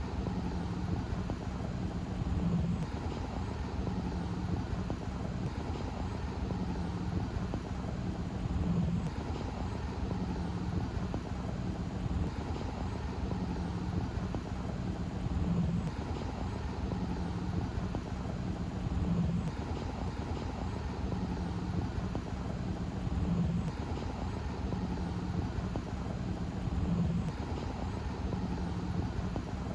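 A steady low engine hum, swelling slightly every three to four seconds.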